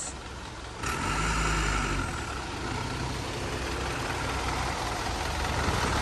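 Light diesel truck engine running slowly at low revs while the truck is guided into place, a steady low rumble that swells briefly about a second in.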